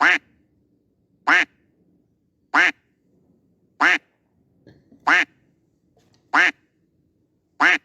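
A duck-quack sound effect playing on a loop: the same single quack repeats about every 1.3 seconds, seven times.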